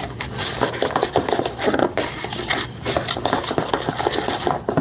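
Spoon stirring a sticky mix of white glue and shaving cream in a bowl, with irregular clicks and scrapes of the spoon against the bowl and soft squelching of the mixture.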